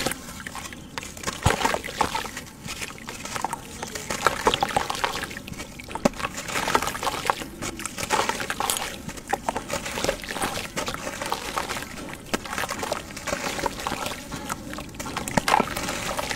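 Crumbly cement block broken and squeezed by hand in a tub of water: water sloshing and trickling, with irregular gritty crackles as the wet pieces crumble.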